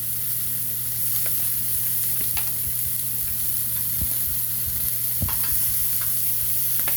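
Food sizzling steadily on a hot cooking surface, with occasional light clicks of a utensil against it.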